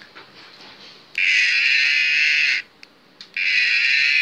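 Electronic sound from a toy cow keychain, played twice, each lasting about a second and a half. It comes thin and high through the toy's tiny speaker.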